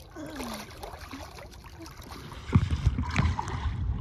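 Faint water sounds, then about two and a half seconds in, wind buffeting the microphone and water sloshing around a small rowing dinghy start suddenly, with a few knocks.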